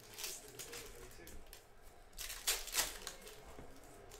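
Trading cards being flipped through and laid on a table: light papery rustling with a few sharp card snaps, the loudest pair about two and a half seconds in.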